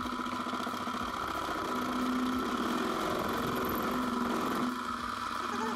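Small benchtop metal lathe running with a steady whine while a cutting tool is fed by hand into the spinning metal part in its chuck. A rougher cutting sound joins in the middle seconds and eases off near the end.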